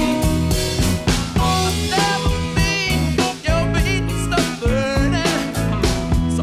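Background music: a rock song with a singing voice, guitar and a steady drum beat.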